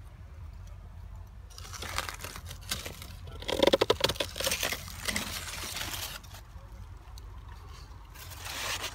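Pruning shears cutting through crunchy zucchini leaf stalks while the big leaves rustle and crinkle against each other; the loudest crunch of cuts comes just past the middle, with more leaf rustling near the end.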